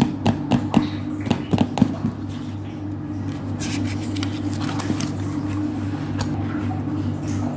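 Paper pages of a small spiral-bound notebook being handled and flipped over: a quick run of crisp paper clicks and taps in the first two seconds, then a few softer ones around the middle. A steady low hum runs underneath.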